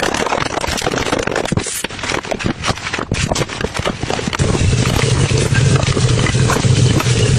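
A soapy cleaning sponge being squeezed and worked by hand, with dense crackling. About four and a half seconds in, a louder, low pulsing squish comes in.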